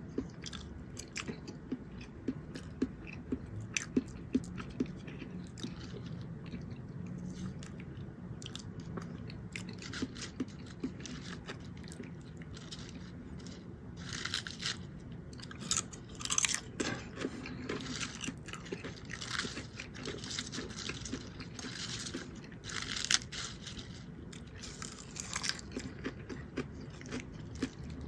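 A person chewing food close to the microphone, with frequent small wet mouth clicks. About halfway through come louder bursts of crackly, smacking chewing.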